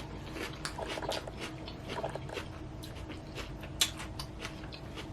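A person chewing a mouthful of salad close to the microphone: irregular crunches and wet mouth clicks.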